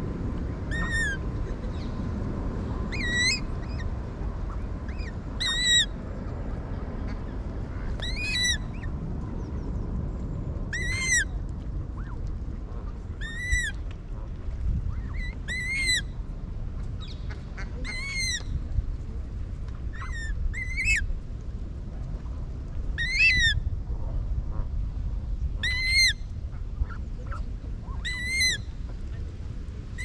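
A water bird calling over and over, one short high call every two to three seconds, about a dozen in all, over a steady low rumble.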